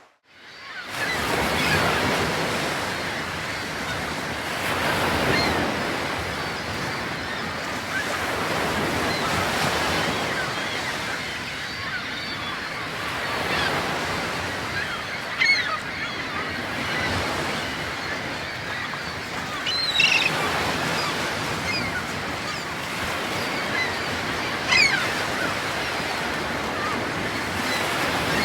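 Steady rush of sea surf and wind, with a few short bird calls standing out in the middle and near the end.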